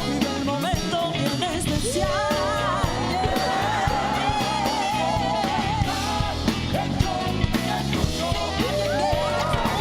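A band playing a rock-pop song with a drum kit and a lead singer. About halfway through, the singer holds a long note with vibrato.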